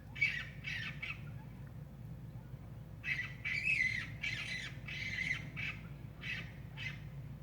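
Short harsh animal calls from outside: two calls near the start, then after a pause a quick run of about seven more. The woman recording takes them for two raccoons fighting.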